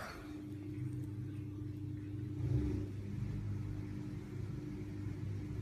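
A steady low mechanical hum with a faint steady tone, like a motor running.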